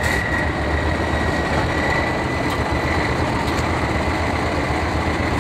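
Tatra 8x8 trial truck's diesel engine running steadily under load as the truck climbs a steep dirt slope, with a thin, high steady whine over the engine noise.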